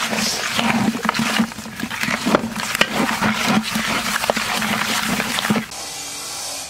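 Live eels being swirled and rubbed by hand in a plastic bucket: a dense, wet squelching and slapping with many sharp clicks, which drops away about five and a half seconds in.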